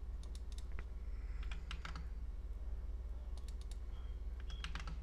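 Scattered, irregular clicks of a computer keyboard being typed on, over a low steady hum.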